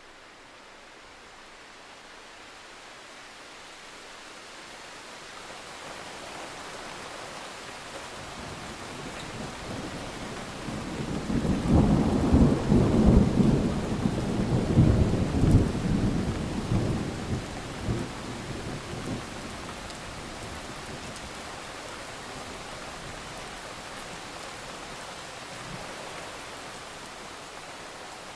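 Steady rain that grows louder over the first several seconds, then a long rolling thunder rumble from about ten seconds in, lasting several seconds before dying back under the rain.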